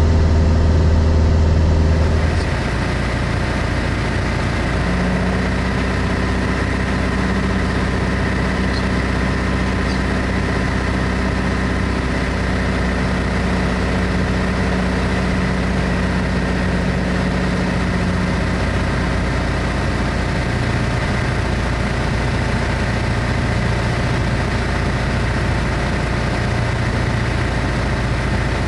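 Single-engine piston airplane's engine and propeller droning steadily, heard from inside the cabin; the hum drops in pitch about two-thirds of the way through.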